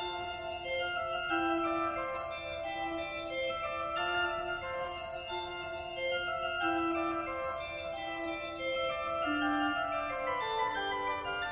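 Organ music playing held chords, the notes changing step by step about once a second.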